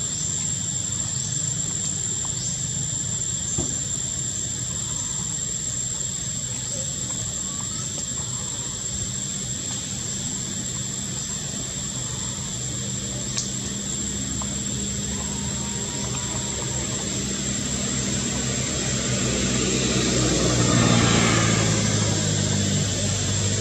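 Steady low engine drone that grows louder, peaks near the end and begins to ease off, like a passing motor vehicle or aircraft, over a constant thin high-pitched whine.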